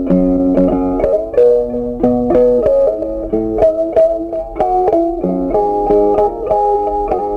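Background instrumental music: a melody of plucked string notes, changing several times a second.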